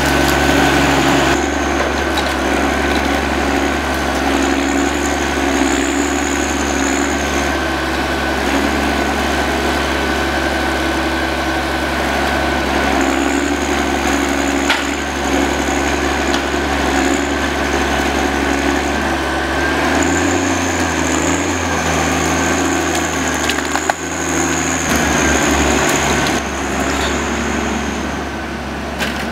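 John Deere 1110D forwarder's diesel engine running steadily, with a high whine that comes and goes in three long stretches and a couple of sharp knocks.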